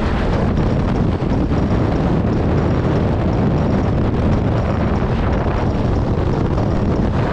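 Motorcycle riding at highway speed, recorded on board: a steady rush of wind buffeting the microphone over the engine's drone.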